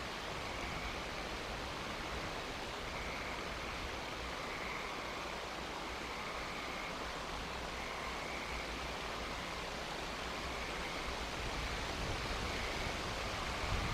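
Steady outdoor night ambience heard through a nest camera's microphone: an even hiss with a faint, pulsing high trill, and a low rumble that swells slightly near the end.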